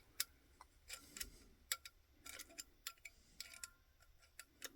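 Faint, irregular small clicks and ticks of a cut 6-32 machine screw being threaded into an electrical box's screw hole.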